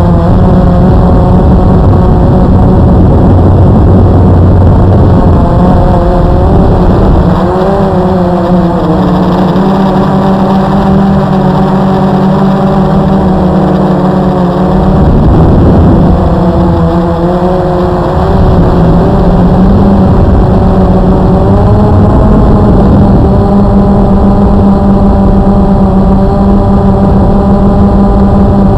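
Blade QX2 AP quadcopter's electric motors and propellers buzzing steadily, heard from its onboard camera. The pitch wavers up and down through the middle as the throttle changes, then settles again.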